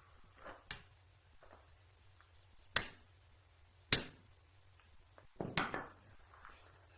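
Hammer blows on the steel kickstand of an Alpha moped as it is straightened: a few irregular sharp metal strikes, the two loudest a little over a second apart in the middle, then a quick cluster of clinks.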